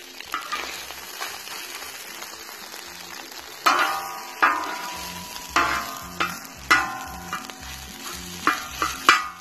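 Food sizzling on a hot steel plow-disc cooker while a metal spatula stirs and scrapes it. From about three and a half seconds in, the spatula strikes the steel disc several times, each a sharp clank with a short metallic ring.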